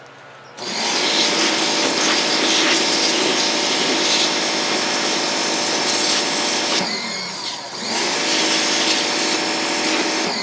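Pressure washer at about 4,200 PSI, its jet blasting into a pumpkin's flesh. It starts about half a second in and drops off for about a second around the seven-second mark, with a falling then rising whine. It then sprays again and cuts off at the end.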